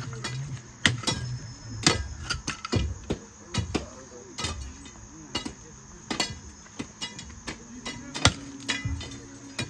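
Pickaxe and iron bars striking and prying into stony mud and gravel around a bogged-down bus wheel, digging it free: irregular sharp knocks, about fifteen in all, some with a brief metallic ring.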